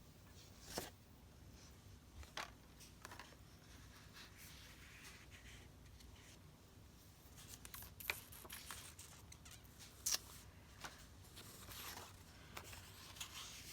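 Faint paper-crafting sounds: sheets of paper being handled and rustled, with a few light taps and clicks.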